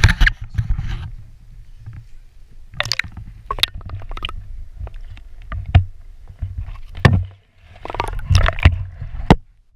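Action camera held underwater: a muffled, steady rumble of water around its housing, broken by many sharp knocks and clicks as it bumps through weed and rock, in clusters about three seconds in and again near the end.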